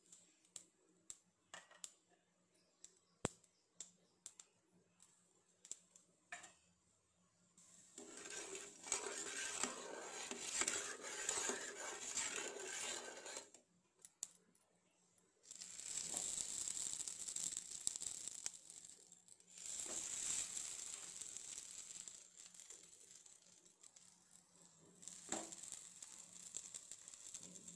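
Mustard seeds crackling and popping in hot oil in a pan, a run of sharp pops over the first several seconds. Then the oil sizzles in long stretches as the spices are stirred with a spatula and idlis are laid in the pan.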